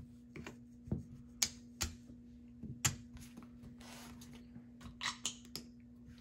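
Casino chips clicking as they are set down and gathered on a felt table, with a soft slide of playing cards being swept up about four seconds in. A faint steady low hum lies underneath.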